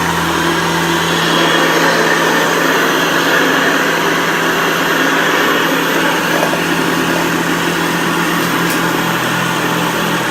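Vintage Hoover upright vacuum cleaner running steadily, a constant motor hum under a rushing airflow noise.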